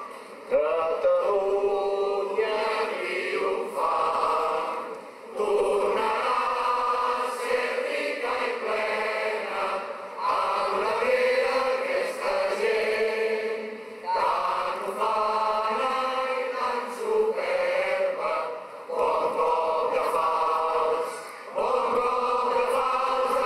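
A large crowd singing together in unison, in drawn-out phrases of a few seconds each separated by short breaks.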